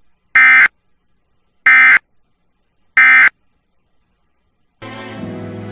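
Emergency Alert System End of Message signal: three short, loud bursts of SAME digital data screech, a little over a second apart, marking the end of the alert. Music begins near the end.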